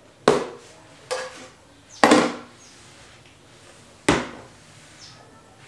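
Containers set down one after another on a kitchen countertop: about four hard knocks, the last as a glass syrup bottle is put down.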